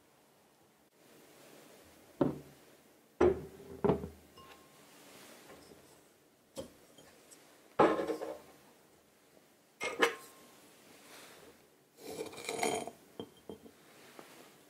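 Glass bowl and kitchen utensils being set down and knocked against a wooden surface: about seven separate knocks and clinks, two of them with a short glassy ring.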